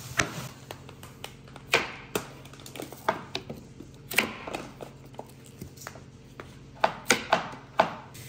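Kitchen knife chopping vegetables on a cutting board: irregular sharp knocks of the blade striking the board, with a quick run of several strikes near the end. A faint low steady hum underneath.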